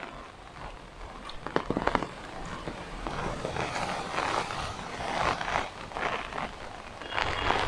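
Strong storm wind gusting through the trees, rustling the leaves and buffeting the microphone, with rain falling. The gusts come unevenly and swell from about three seconds in.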